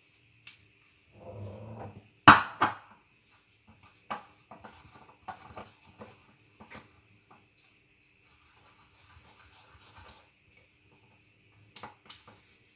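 A spoon scraping and knocking in a small bowl while stirring ground cinnamon and ginger into thick honey, with one sharp knock about two seconds in and scattered lighter scrapes and taps after it.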